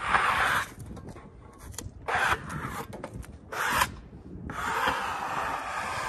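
Rough scraping and rubbing of wood on wood as sawn lumber on the sawmill is handled: three short scrapes, then a longer one lasting about two seconds near the end.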